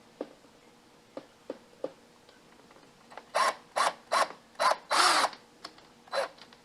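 Black+Decker 20V cordless drill driver run in about six short pulses, driving a screw into the folding door's top-rail bracket, after a few light clicks.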